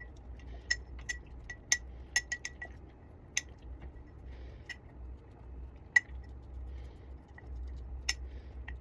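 Metal spoon clinking against glass jars: about a dozen light, ringing taps at irregular intervals, the loudest about six seconds in.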